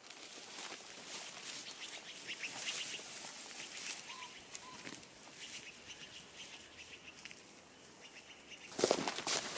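Footsteps and rustling through tall dry grass and brush, an uneven crackle, with a louder crunch of brush near the end.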